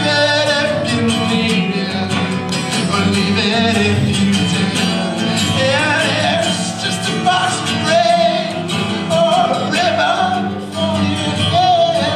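A man singing over a strummed acoustic guitar, his voice wavering on drawn-out notes.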